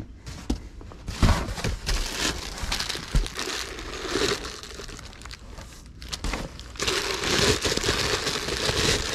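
Clear plastic wrapping crinkling as a wrapped ceramic utensil crock is handled and turned over, with a couple of dull knocks about a second in and again about three seconds in. The crinkling grows denser and louder near the end.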